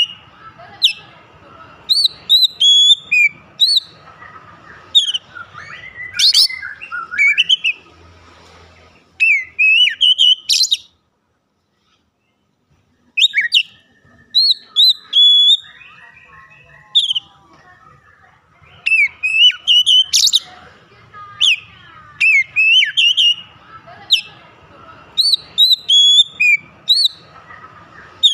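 Oriental magpie-robin singing in full song: rapid bursts of varied whistled notes sliding up and down, mixed with chattering phrases. It breaks off for about two seconds just before the middle, then resumes.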